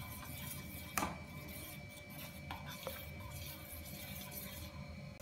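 Metal spoon stirring thick ragi malt with milk in a metal pot, with one sharp clink against the pot about a second in and two faint taps a little later, over a low steady hum.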